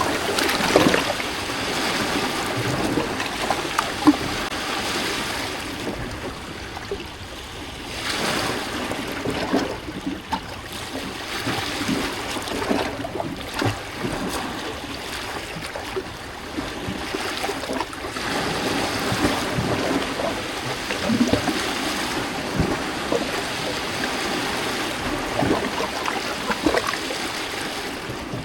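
Small lake waves lapping and splashing against rocks along the shore, in uneven surges with short slaps and trickles of water between them.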